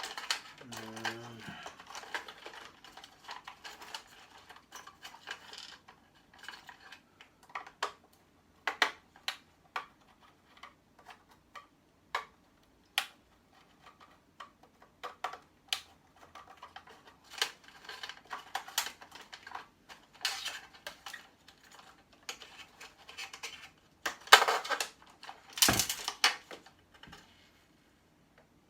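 Irregular clicks and metal clinks of small parts and hand tools being handled while electrical equipment is taken apart for scrap, with a louder rattle near the end.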